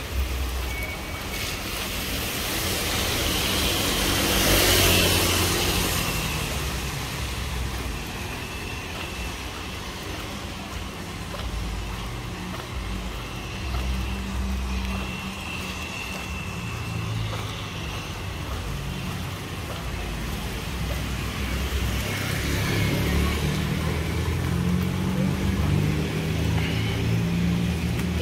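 Street traffic: car engines running low, with one vehicle passing close about four to five seconds in, and traffic getting louder again near the end.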